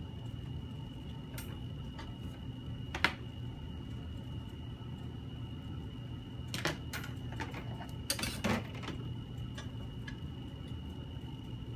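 A few small clicks and clinks of hard objects being handled: one sharp click about three seconds in, and a cluster of lighter clicks a little past halfway. Underneath is a steady electrical hum with a faint high whine.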